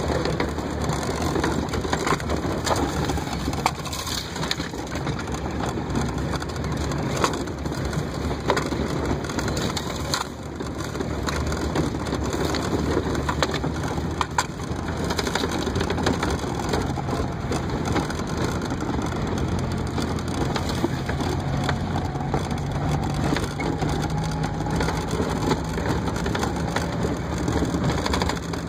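Heard from inside the cab of an off-road vehicle driving over a rough sandy track: a steady engine drone that climbs a little in pitch in the later part, under constant rattling, clicking and knocking as the vehicle jolts over the ground.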